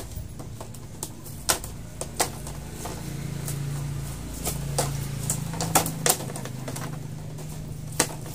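Sharp, separate clicks and taps of plastic and metal, about half a dozen, as hands work the edges of an opened LED TV panel's diffuser and frame, over a low steady hum.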